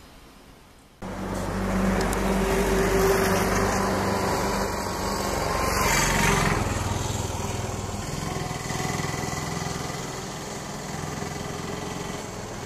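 Jet engines of an Airbus A320neo-family airliner running as it rolls along the runway, a loud steady jet noise with a high whine that falls slightly as the aircraft passes about six seconds in. The sound comes in abruptly about a second in.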